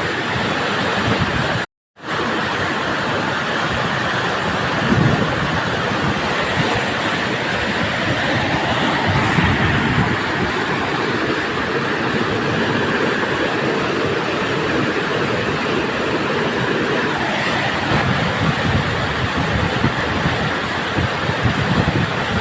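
Whitewater river rapids rushing loudly and steadily, with one brief cut to silence about two seconds in.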